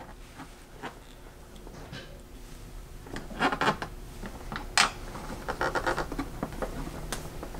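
Small screwdriver driving the screws of a plastic wall switch plate: faint scraping and clicking that grows busier after about three seconds, with one sharp click near five seconds.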